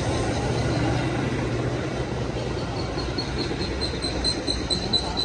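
Metra commuter train of stainless-steel bilevel cars rolling slowly past with a steady low rumble. About halfway through, a high, rapidly pulsing tone comes in, several beats a second.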